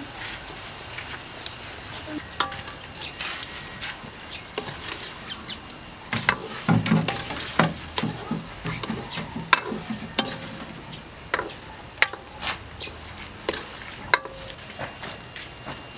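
A metal utensil scraping and clicking against a wok as pieces of black eel are stirred in a sizzling sauce. Sharp clicks come irregularly, busiest around the middle, over a steady sizzle.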